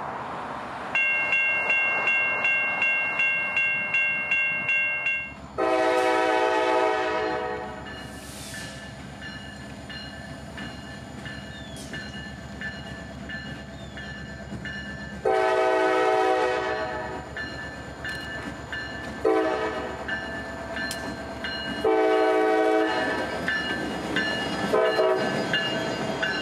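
A lone EMD GP40-3 locomotive running light sounds its air horn in the grade-crossing pattern: two long blasts, a short one, a long one and a last short one, with its diesel engine running beneath. Before the first blast a bell rings in quick pulses, about three a second.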